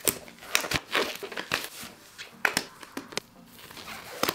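Thin disposable gloves being pulled on and worked over the hands, giving irregular crinkling with short sharp clicks.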